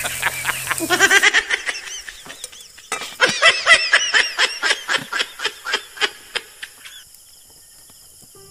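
A man laughing loudly and hysterically in fast, rhythmic 'ha-ha-ha' bursts: a meme laugh clip edited in as a gag. The laughter stops about seven seconds in.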